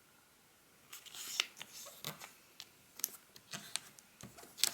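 Origami paper being folded in half and creased by hand: a string of crisp paper rustles and sharp crackles, starting about a second in, with the loudest near the end.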